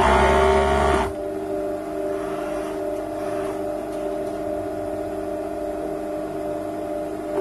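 Industrial overlock machine (serger) stitching a knit t-shirt seam in a short fast run of about a second, then stopping. Its motor keeps humming steadily while the needles are at rest.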